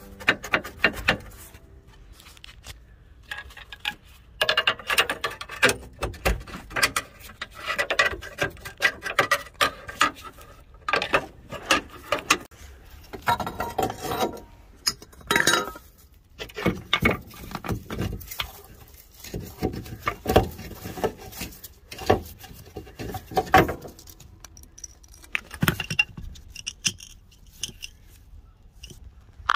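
Irregular metallic clanking, knocking and rattling of tools and engine-mount parts being worked in and out of a car's engine bay. Many of the knocks ring briefly like struck steel.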